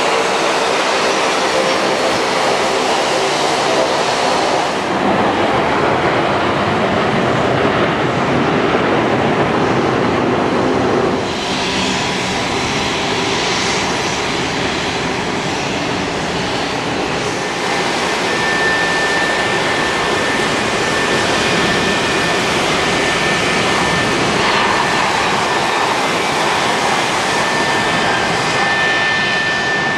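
Airliner engine noise on a rain-soaked runway, a steady rushing hiss under it, changing abruptly about eleven seconds in. Over the last dozen seconds a steady high engine whine joins in.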